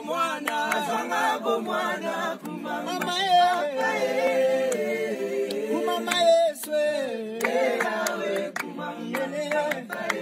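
Voices singing without instruments, a cappella, as background music; several voices seem to sing together.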